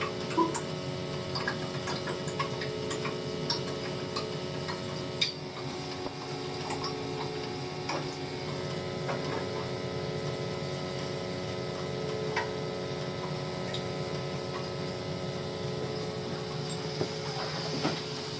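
Steady mechanical hum of a running gas-fired boiler, several steady tones held throughout, with scattered light ticks and clicks.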